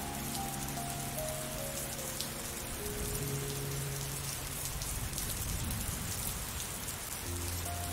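Steady rain falling, with fine drop splashes through it. Soft music of slow, held notes runs underneath, with a slow falling run of notes in the first two seconds.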